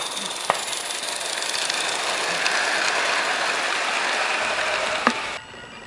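Live-steam 16mm-scale garden-railway locomotive and its long train of wagons rolling past close by: a steady hiss of steam with the rumble of wheels on the track, growing a little louder, with a couple of sharp clicks from the wheels and rail joints. It stops abruptly near the end.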